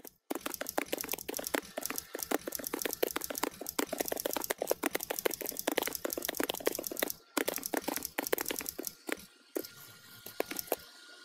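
Typewriter keys clicking rapidly, several keystrokes a second as a line of text is typed, with brief pauses about seven and nine seconds in.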